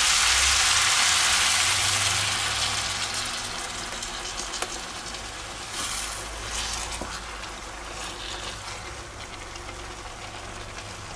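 Gyros strips, mushrooms and onions sizzling in a frying pan as cream goes in. The sizzle is loud at first and dies down over the next few seconds as the cream cools the pan, leaving a quieter bubbling with a wooden spatula stirring and scraping through it.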